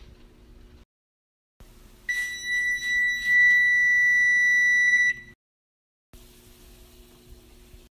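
Electronic oven control panel beeping as its keypad is pressed to set the temperature: a few quick beeps that run into one long, steady beep of about two seconds.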